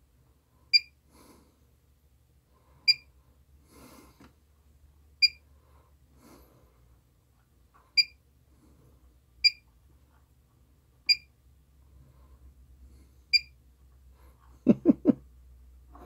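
Seven short, high electronic beeps at uneven intervals: key-press beeps from bench test equipment (the oscilloscope and waveform generator) as its settings are changed. Near the end there are three brief low sounds.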